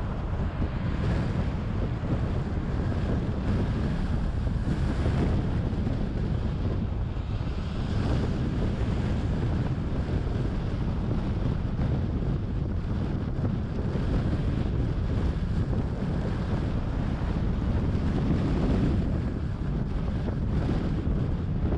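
Steady low rumble of wind on the microphone and road noise from a moving car.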